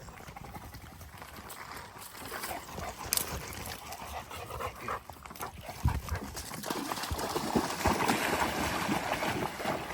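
A dog wading and splashing in shallow lake water, the splashing and sloshing building over the last few seconds.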